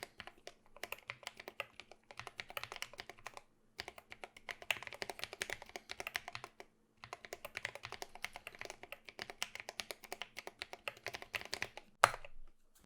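Typing on a mechanical keyboard with lubed Drop Holy Panda tactile switches, MT3-profile PBT keycaps and an aluminum case: fast runs of key clacks in bursts with short pauses. A single louder clack comes near the end.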